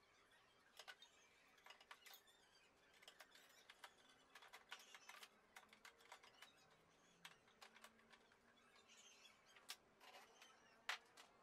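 Faint, scattered light clicks and small knocks of plastic and sheet-metal printer parts being handled as the mainboard assembly of an Epson T60 printer is fitted back into its chassis, with one sharper click near the end.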